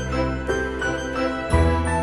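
Background music: a melody of short notes over a held bass note, the bass moving to a new note about one and a half seconds in.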